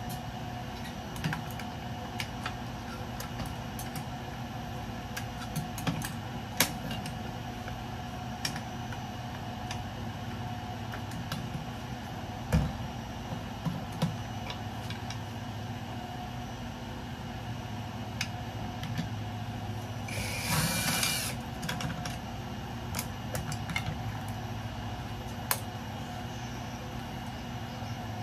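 Scattered light clicks and taps of small metal parts and tools being handled while dismantling electrical scrap, over a steady background hum. A louder knock comes about twelve seconds in, and a short hissing rush of about a second comes near the twenty-second mark.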